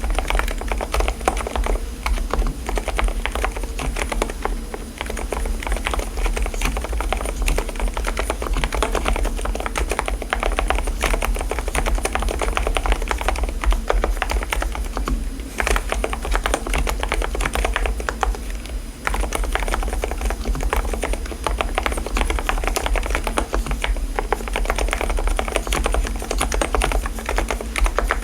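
Continuous fast typing on an Mstone mechanical keyboard with low-noise (dampened) switches: a dense stream of soft keystroke clicks, with brief lulls about five seconds in and again past the middle.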